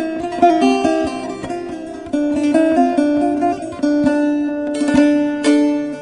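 Instrumental break of a Turkish folk song: plucked bağlama playing a running melody of quick notes over a held low tone, with a brief bright wash of sound about five seconds in.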